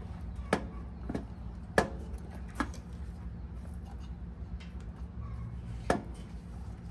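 A motorcycle's plastic side panel being wiggled loose by hand, giving about five sharp clicks and knocks, spaced irregularly, over a steady low hum.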